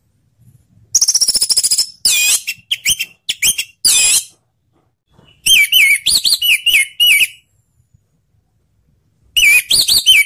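Orange-headed thrush singing in three loud bursts of rapid, looping whistled notes, with short pauses between them. The first burst opens with a high, buzzy note.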